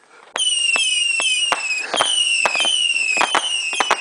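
Consumer fireworks going off in a grand finale: a rapid run of shrill whistles, each falling a little in pitch and overlapping the next, with sharp pops among them, starting about a third of a second in.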